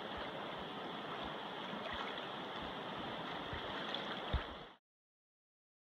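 Steady rush of river water flowing through shallows, with a few low thumps on the microphone, the strongest a little over four seconds in. The sound cuts off abruptly near the end into silence.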